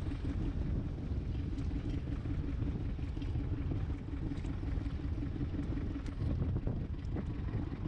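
An engine running steadily, a constant low rumble with a held hum, while the fishing net is hauled in.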